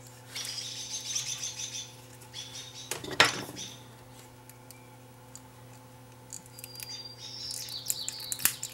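Squeaking and crackling as a small circuit board is pulled free of a lithium-ion battery pack held on with double-sided tape, with one sharp clack about three seconds in. Near the end a screwdriver tip scrapes and clicks against the battery's plastic holder. A faint steady electrical hum runs underneath.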